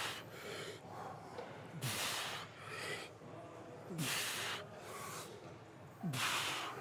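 A man breathing hard through a one-arm cable pulldown set: a forceful hissing exhale about every two seconds, one with each pull, each opening with a short falling grunt, with fainter breaths between.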